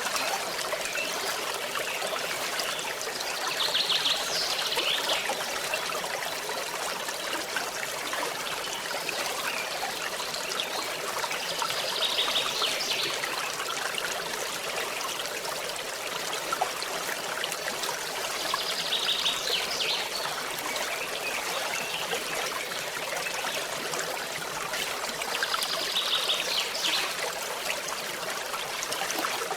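Stream water trickling and running steadily. A short, high, rapid trill recurs four times, about every seven seconds.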